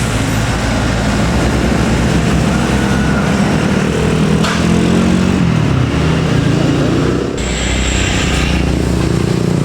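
Tour bus diesel engine running under load. Its note falls once about halfway through.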